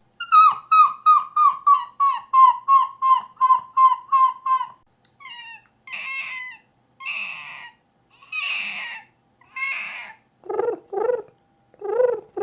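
A man's vocal imitations of birds. First a large gull's laughing call, a fast series of short falling yelps at about three a second. Then a smaller gull's higher, harsher screeches, about five of them. From about ten seconds in come a pigeon's low cooing notes in pairs.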